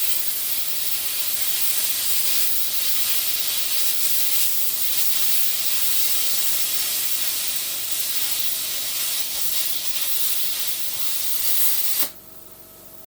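Plasma cutter torch hissing steadily as it runs, then cutting off abruptly about twelve seconds in.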